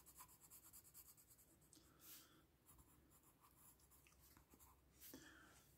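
Faint scratching of a coloured pencil shading on paper in quick repeated strokes, as yellow is blended over orange.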